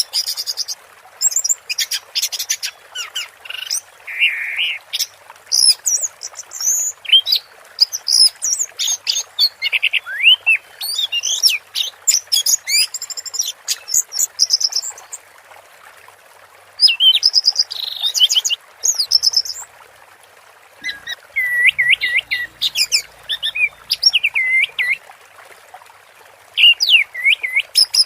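Orange-headed thrush singing a long, varied song of quick whistled and chattering phrases, broken by a few short pauses, over a steady background hiss.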